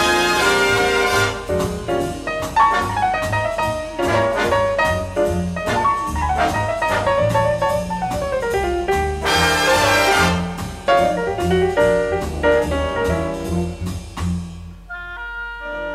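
Big-band jazz recording: a brass section with trumpets and trombones playing over a drum kit. Near the end the drums and low parts drop away, leaving a few held higher notes.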